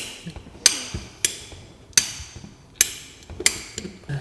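A series of six sharp knocks with a short ringing tail, roughly one every two-thirds of a second, as in tapping a part into place during plumbing fitting work.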